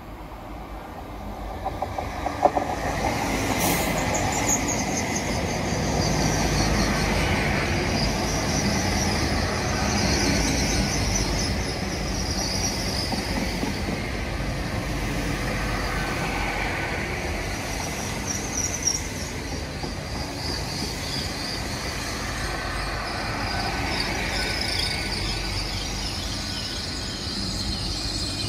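Hitachi Class 802 bi-mode passenger train arriving at a station platform and slowing to a stop. Its wheels rumble steadily over the track, with a few sharp clicks about two seconds in and a thin high-pitched squeal from the wheels and brakes as it slows.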